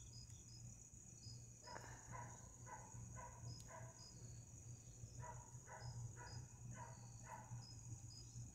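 Crickets and other night insects chirping: a steady high trill with short chirps repeating above it. Two bouts of faint, quickly repeated lower calls come through, one about two seconds in and one about five seconds in, over a steady low hum.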